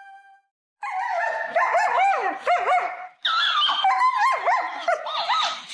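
A dog whining and yowling in quick rising-and-falling cries, in two long runs with a short break about three seconds in.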